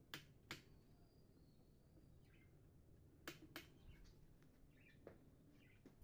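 Near silence with faint chirps from caged birds: two pairs of short sharp chirps about three seconds apart, and a thin steady whistle lasting about a second and a half.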